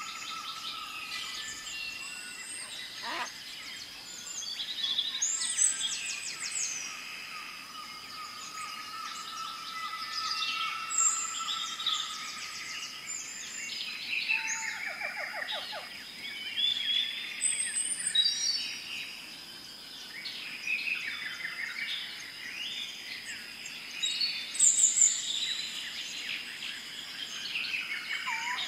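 Many birds chirping, whistling and trilling over one another, the calls overlapping throughout, with a steady high-pitched tone running underneath: a jungle-style birdsong ambience.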